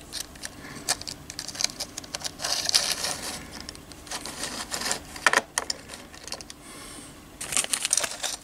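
Irregular light clicks and knocks as metal miniatures on plastic slotted bases are picked up, moved and set down on a cutting mat, with short rustles of handling in between.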